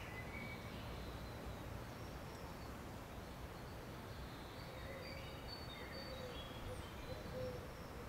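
Outdoor background: a steady low rumble of distant noise, with faint, short, high bird chirps and whistles scattered through it.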